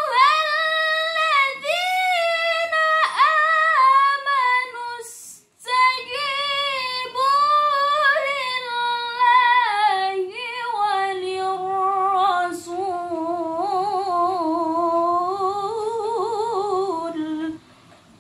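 A woman's solo Quran recitation (tilawah), chanted melodically in long drawn-out phrases whose pitch waves and ornaments. There is a short pause for breath about five seconds in. A lower sustained phrase swells near the end and then stops.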